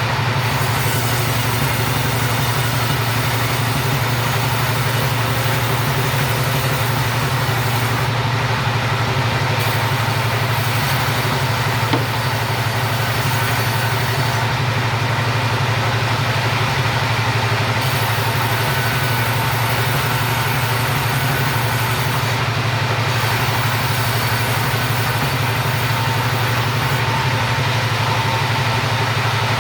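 Chainsaw running steadily under load, ripping timber lengthwise into rafter stock, its engine note holding even with no change in speed.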